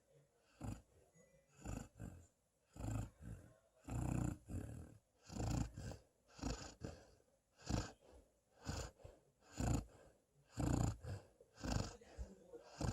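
East European Shepherd dog snoring in its sleep: noisy snoring breaths coming about once a second.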